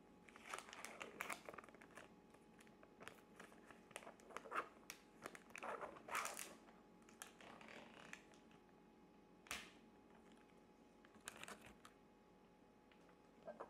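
Knife cutting a block of feta cheese into cubes inside its plastic container: soft, irregular taps and short scrapes of the blade through the cheese and against the plastic.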